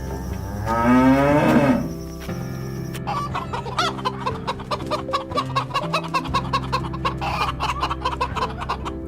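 A cow moos once about a second in, then hens cluck in a quick, steady run from about three seconds in, over background music.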